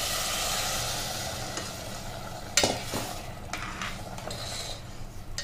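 Boiled water sizzling as it is poured onto sautéed spiced rice in an aluminium pressure cooker. A steel spoon then stirs it, knocking sharply against the pot about halfway through, followed by lighter scraping and clinks.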